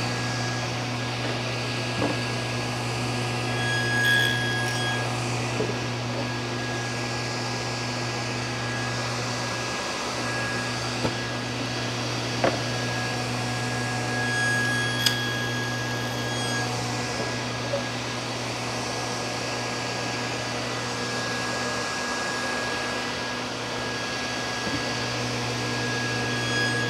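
Table saw running steadily while a wide wooden panel is pushed along the fence over the blade, cutting a tenon shoulder deeper in another pass. A few light knocks of the panel and hands against the saw.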